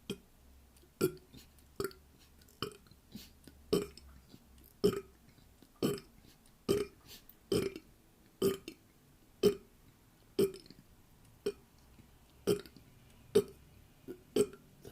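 A person burping over and over: about fifteen short, sharp burps, roughly one a second.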